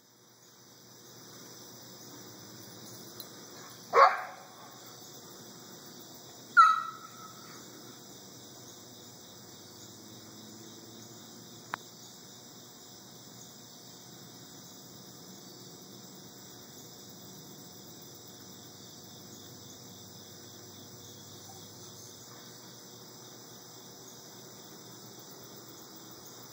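Two loud, sharp barks about two and a half seconds apart, over a steady high-pitched chorus of crickets.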